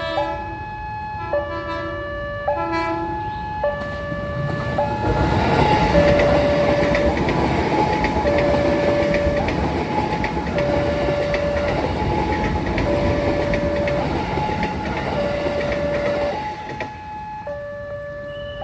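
Railway level-crossing warning alarm sounding a repeating two-note tone. A train passes from about five seconds in until about sixteen and a half seconds, its wheels clattering over the rails, while the alarm keeps sounding.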